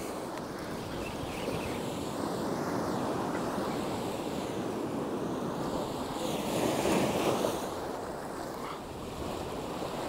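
Sea swell surging against a rocky shore, with wind. One wave swells louder for a second or so late on.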